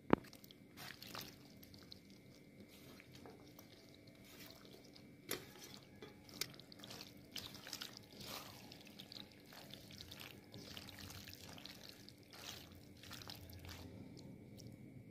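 Boiled macaroni going into a kadhai of egg masala and being stirred with a silicone spatula: faint wet squelching and scraping, with a few sharp knocks.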